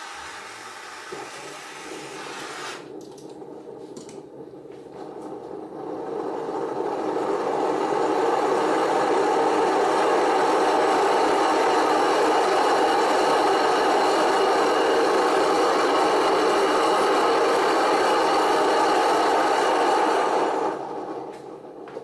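A hand-held propane torch hissing at the mouth of a homemade propane foundry furnace for about three seconds. A few seconds later the furnace's propane burner builds up to a loud, steady rush of flame as it is turned up to full, holding until it drops away near the end.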